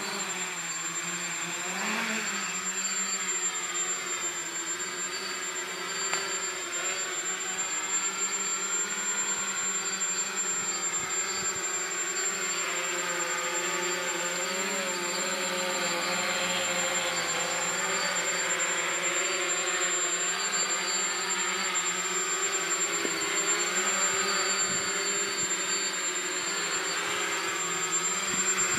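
Electric motors and propellers of a small multicopter whirring in flight, the pitch rising and falling as the throttle changes. A steady thin high whine runs underneath.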